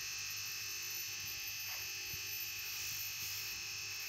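A steady, even buzzing hiss with no change in loudness, with a few faint ticks.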